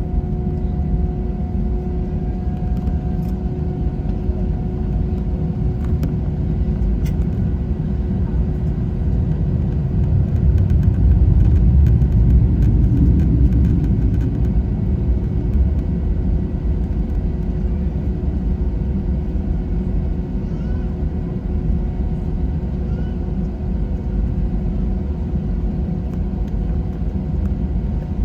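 Cabin noise aboard an Airbus A321 jet airliner: a steady deep rumble from the jet engines and airflow with a steady whine over it, swelling louder for a few seconds midway.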